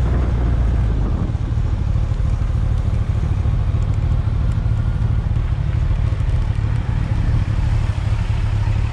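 Motorcycle ridden along a road, heard from a camera mounted on the bike: a steady, loud engine rumble mixed with wind noise.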